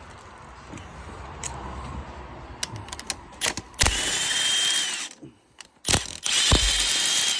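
Power ratchet running in two bursts of about a second each, with a steady motor whine, backing out two bolts from the engine. A few short clicks come before it.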